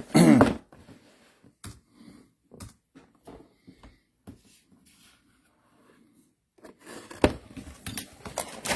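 Trading-card boxes and foil packs being handled and opened by hand: scattered light clicks, taps and rustles, with a louder burst right at the start and busier handling near the end.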